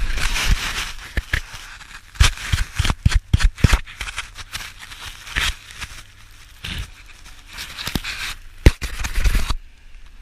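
Irregular crunching and scraping in snow, like footsteps tramping through it, with a quicker run of about three crunches a second a couple of seconds in. The sound stops abruptly just before the end.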